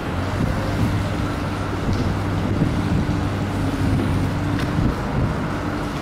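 The 62 hp engine of a small trash skimmer boat running under way with a steady hum, over wind buffeting the microphone.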